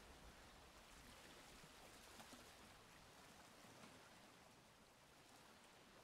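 Faint sea waves washing on the shore: a soft, even hiss of moving water that eases slightly toward the end.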